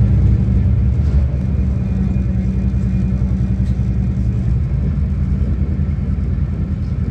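Steady low rumble of a Trenitalia Intercity passenger train running at speed, heard from inside the carriage.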